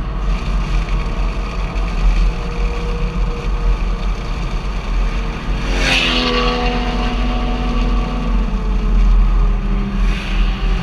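Vehicle engine running steadily, with a short hissing rush about six seconds in.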